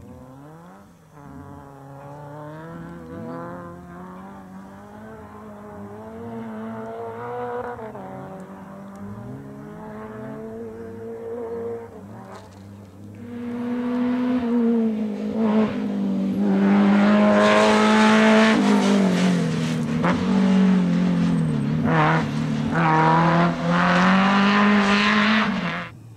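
Rally car engine, faint at first and rising and falling in pitch, then much louder about halfway through, revving hard with repeated climbs and drops in pitch as it changes gear.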